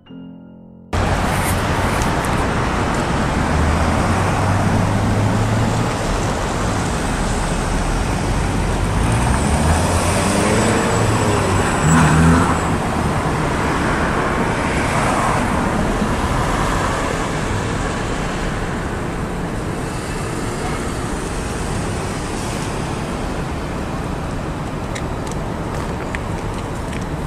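Street traffic noise: a steady roar of passing cars, starting abruptly about a second in after a short tail of piano music. An engine rises and falls as a vehicle passes, loudest about twelve seconds in.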